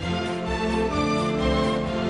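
Instrumental background music with sustained string-like tones over a pulsing bass.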